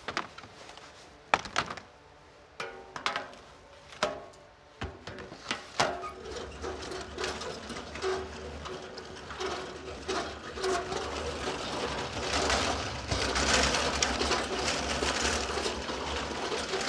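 Plastic nursery trays knocking together several times. Then a cart loaded with stacked plastic trays rolls over concrete with a steady rumble and rattle, growing louder near the end.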